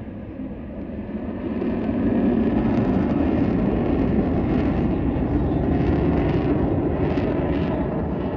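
Military aircraft flying over, a loud rushing rumble that swells about two seconds in and then holds steady.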